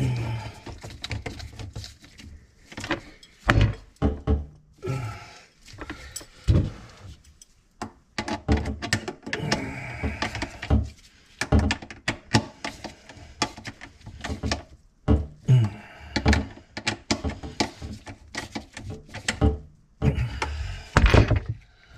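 Irregular clunks, clicks and scraping of tools and drain parts being handled under a kitchen sink during a garbage disposal install, several knocks a second at times, with short pauses between.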